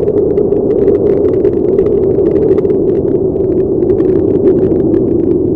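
A steady, loud rumbling drone with dense crackling over it: a sound-effect bed under an animated end card. The crackles thin out near the end.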